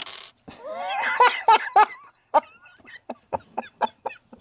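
A man laughing: a drawn-out laugh rising in pitch, then a string of short chuckles.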